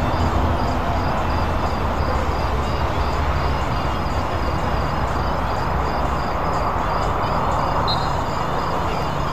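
Steady low rumbling noise with a faint hiss.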